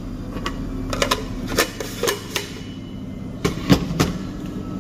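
Scattered clicks and knocks as the lid and glass roasting chamber of a home hot-air coffee roaster are handled and seated back on the base, over a steady low hum.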